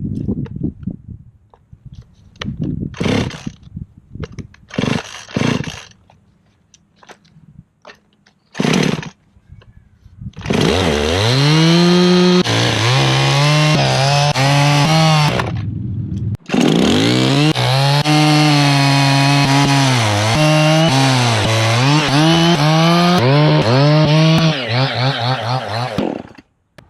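Husqvarna 55 two-stroke chainsaw, after a few short sounds, starting about ten seconds in and running, its engine speed rising and dipping as it cuts through pine stump roots. It stops briefly midway, then runs again until shortly before the end.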